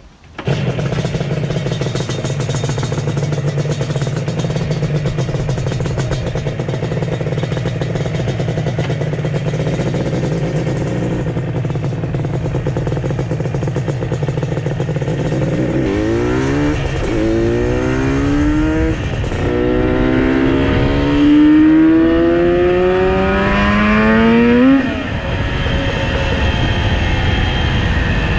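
Yamaha RD350's two-stroke parallel-twin engine running on the move, steady at first. About two-thirds of the way through it revs up through the gears in several rising sweeps, each cut off by a shift, then settles to a steady cruise near the end.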